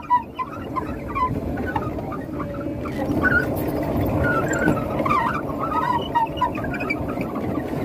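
Alpine coaster sled running down its track with a steady rumble, and scattered short high squeaks or chirps over it.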